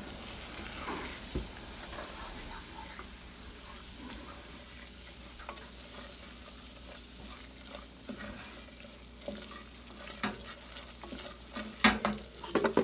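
Butter sizzling in a hot saucepan while being stirred with a wooden spatula: the butter base of a roux. A few sharp knocks against the pan near the end.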